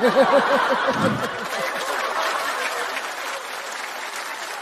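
Studio audience laughing and applauding after a punchline. A loud run of 'ha-ha' laughter in the first second gives way to steady clapping.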